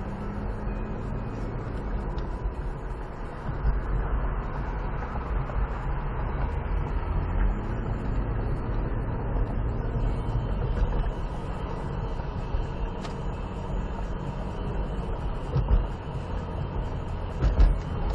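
A car driving on a city street, heard from inside the cabin: a steady engine hum and tyre noise on the road, the engine pitch rising once about halfway through. A few low thumps come through, the loudest near the end.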